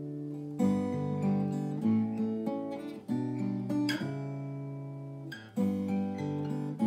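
Background music: acoustic guitar chords strummed and left to ring, a new chord struck about every second or so.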